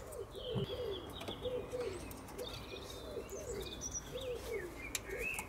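A pigeon cooing over and over in a steady run of low, soft phrases, with small birds chirping higher up.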